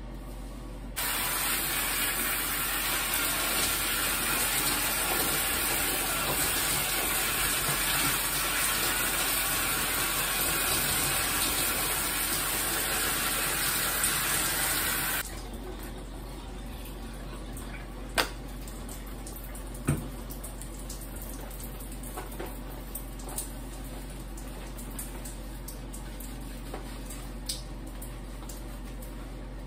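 Shower spray pouring onto hair and skin, a loud steady hiss of water that starts about a second in and cuts off abruptly about halfway through. After that it is much quieter, with a few soft clicks while the hair is being lathered.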